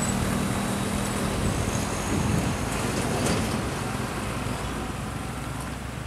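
Tanker truck's diesel engine running as it pulls through a tight bend, with motorcycles passing. The engine hum is plain for the first second or so, then gives way to road noise that slowly fades as the truck moves off.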